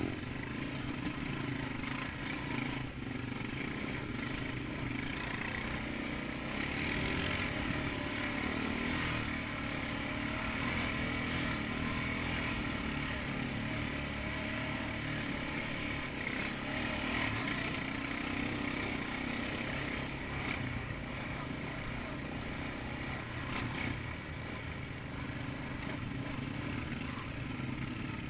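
ATV engine running steadily under way over a rough dirt trail, with a few brief knocks from the bumpy ground.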